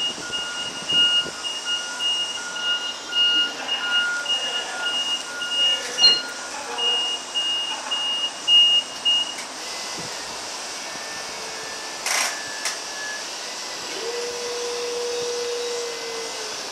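Linde E35P electric forklift reversing, its reversing alarm beeping about twice a second for roughly the first nine seconds. A short knock comes about twelve seconds in, and near the end the hydraulic pump motor starts a steady whine as the forks are raised.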